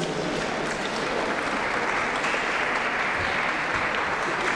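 Audience applauding steadily at the end of a figure skating program.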